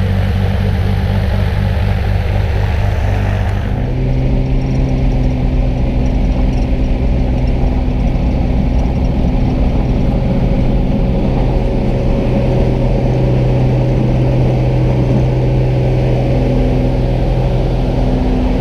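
Piston engine of a single-engine propeller plane running steadily at low power on the ground. About four seconds in, the engine note steps up slightly and the high hiss drops away, the sound turning duller as it is heard from inside the cabin.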